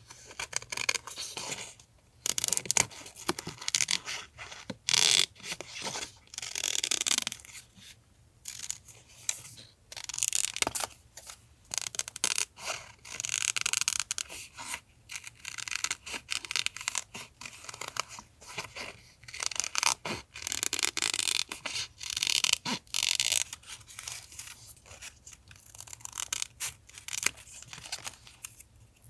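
Paper being handled for a journal collage: an irregular run of short rustling and scraping strokes, with brief pauses between them.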